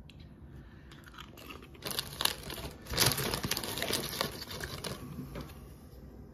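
Tortilla chips crunching and crinkling: a run of crisp crackles about two seconds in, loudest around the third second, dying away by about five and a half seconds.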